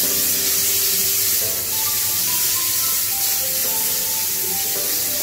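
Handheld sanitiser sprayer giving off a steady, unbroken hiss of mist as it disinfects a salon chair.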